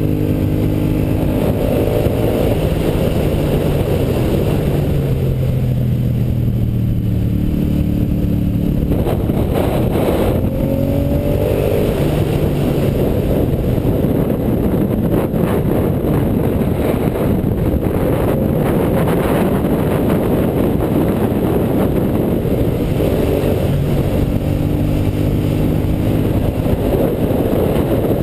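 Aprilia Caponord's V-twin engine being ridden hard on track. The engine note falls over the first several seconds, climbs again about ten seconds in as it accelerates, and through the middle is largely buried under wind rush on the microphone.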